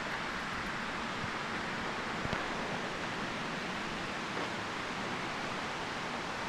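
Steady rushing of a nearby waterfall, an even hiss with no breaks.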